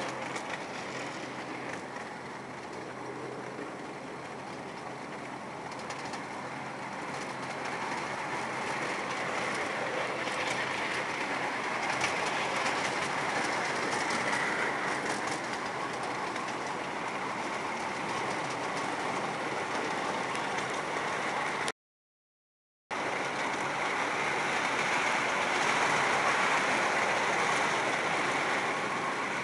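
Miniature park train running along its track, heard from a riding car: a steady rumble and rattle of the wheels on the rails, growing a little louder as it goes. The sound drops out completely for about a second about three-quarters of the way through.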